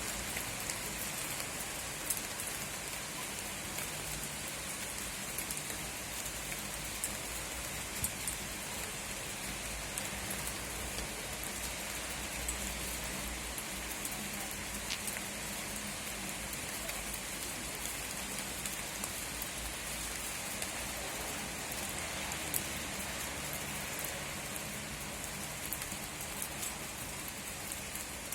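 Steady rain falling: an even hiss with scattered sharp ticks of drops striking.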